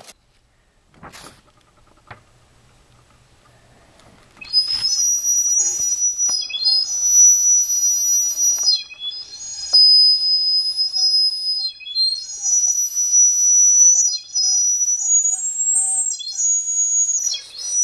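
High-pitched whistling tones, several steady pitches sounding together, held for a second or two at a time with short breaks. They start about four seconds in, after a faint stretch with a single click.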